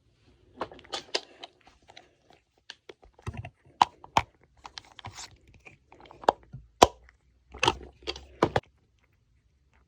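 Plastic packing materials being handled: crinkling and sharp clicks in irregular bursts, the loudest snaps a little under four seconds in, just before seven seconds, and around eight and a half seconds.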